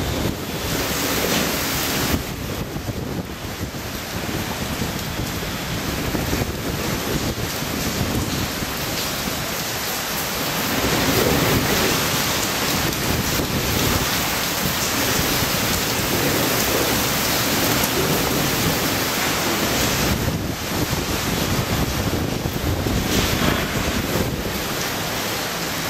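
Typhoon eyewall wind blowing with heavy driven rain: a dense, steady rush of noise that swells in gusts, strongest about halfway through and again near the end.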